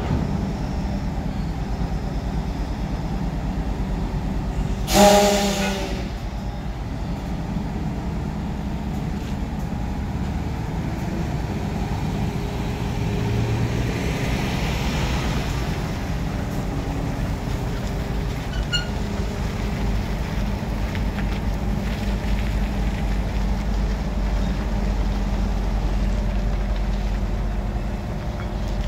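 Heavy diesel engines running steadily from the mobile crane and the tractor-trailer moving off beneath the lifted container. One short, loud burst comes about five seconds in, and a fainter hiss follows about fourteen seconds in.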